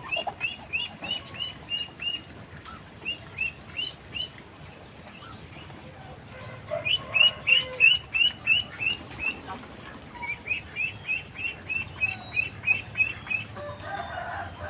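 Poultry calling: short high-pitched calls repeated about four or five a second, in several bouts of a few seconds with short pauses between.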